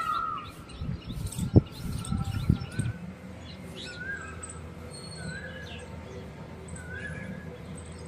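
Small birds chirping, short call notes repeated about once every second or so over a low steady hum. A couple of sharp taps come in the first three seconds, the loudest about one and a half seconds in.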